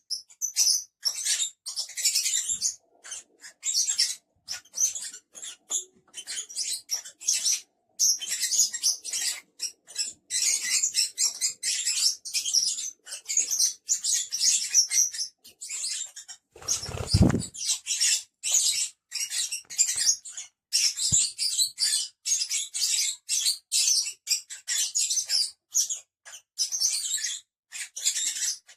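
Several lovebirds (Agapornis) chattering and chirping rapidly in high-pitched bursts with short gaps, and one dull thump a little past the middle.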